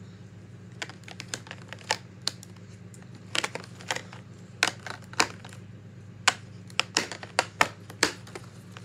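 Plastic markers clicking and clacking as they are handled and set down one at a time. The sharp, irregular clicks start about a second in, over a steady low hum.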